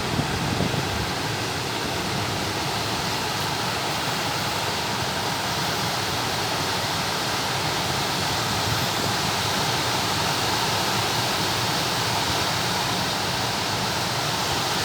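Steady rushing noise of wind and water around a small fishing boat at sea, even throughout with no distinct events.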